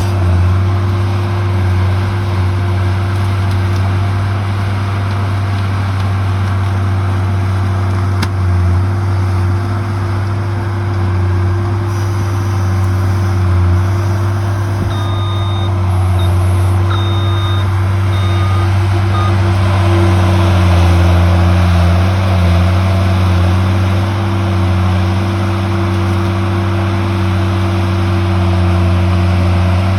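Skid-steer loader's engine running steadily, with a few short beeps about halfway through.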